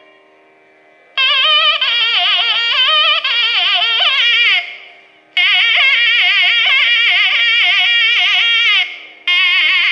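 Nadaswaram playing an unmetered alapana in raga Dharmavathi: long phrases with wide, wavering slides between notes, starting about a second in, with short breaks near the middle and near the end. A steady drone sounds underneath, and no drum plays.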